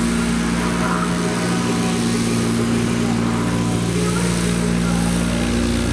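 Diamond DA40 Diamond Star light aircraft's propeller engine running steadily while taxiing on grass: an even drone with a hum of steady tones.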